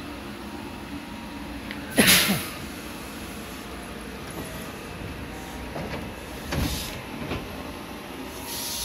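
JR West 223 series electric commuter train stopping at a platform and opening its doors: a loud, sharp burst of air hiss about two seconds in, then a thud with a softer hiss and another hiss near the end.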